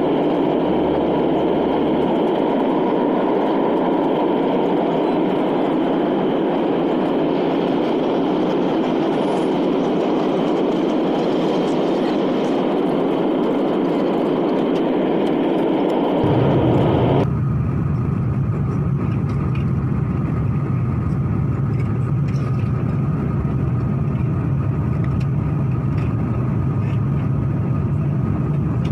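Steady cabin noise of an Airbus A330-300 airliner in cruise: an even rush of airflow and engine noise. About 17 seconds in it changes abruptly, the hiss dropping and a lower hum coming forward.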